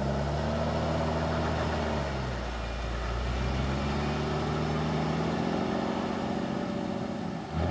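Jeep Wrangler TJ engine working under load as it crawls up a steep slickrock climb, its pitch dipping and rising with the throttle. Near the end there is a louder burst, after which the engine sound drops away.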